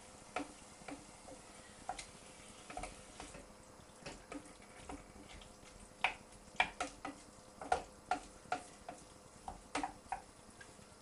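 Tinned tomato and vegetable mixture in a pan heating towards a simmer, bubbles bursting with irregular soft pops and plops that come more often and louder in the second half.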